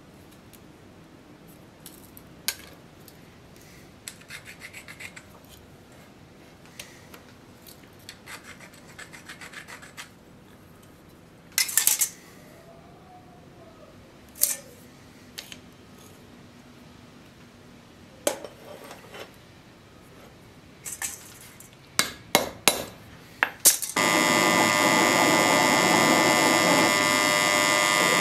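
Steel scriber scratching marking lines against a square, in short runs of strokes, with sharp clicks and knocks of steel tools being set down on the anvil. About 24 seconds in, a drill press starts, loud and steady, boring into a metal block held in a vise.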